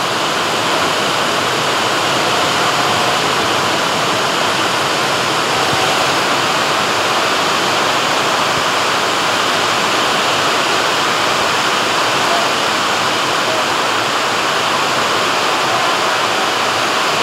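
Heavy rain pouring down steadily, a dense even hiss with no letup.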